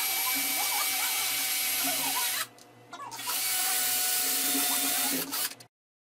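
Cordless drill-driver running at the wooden mounting board of a microwave oven transformer, in two long steady runs with a short pause about halfway through. Its motor whine stays level in pitch.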